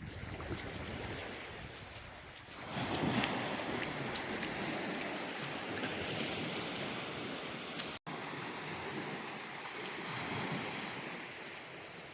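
Surf washing onto a beach, a steady rush that swells as a wave comes in about three seconds in and again near the end, with wind.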